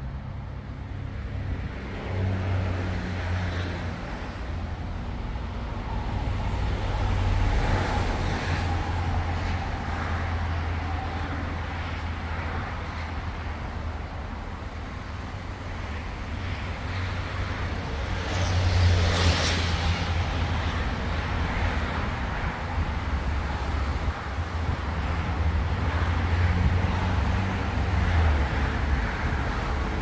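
Road traffic on a city boulevard: a steady low rumble of cars driving past that swells and fades as each goes by. One vehicle passes close and loud about two-thirds of the way through.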